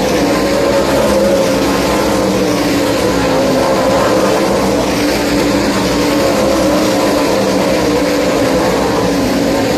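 A pack of World of Outlaws 410 sprint cars racing on a dirt oval, their methanol-burning V8 engines running together in a loud, steady drone that wavers in pitch as the cars go through the turn.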